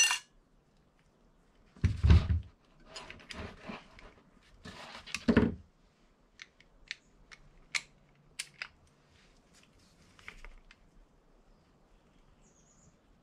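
Tools being worked while a bicycle chainring is torqued down with a half-inch torque wrench: two heavy knocks, one about two seconds in and one past the middle, then a scatter of short, sharp metallic clicks.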